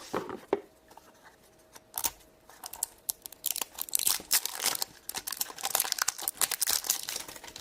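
Plastic blind-bag toy packaging being torn open and crinkled by hand: a few sharp clicks, then from about two seconds in a dense, continuous crackling and rustling.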